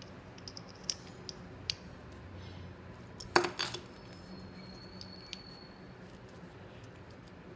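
Small plastic pieces of a Kinder Joy toy being handled: light scattered clicks and taps, with one sharp snap about three and a half seconds in.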